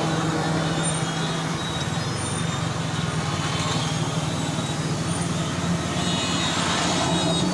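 Street traffic noise: a motor vehicle engine runs steadily with a low, evenly pulsing hum over a general traffic din.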